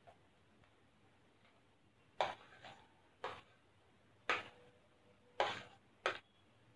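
A steel spoon knocking and scraping as it pushes diced tomatoes off a paper plate into a stainless-steel mixer jar: about six sharp taps, starting about two seconds in.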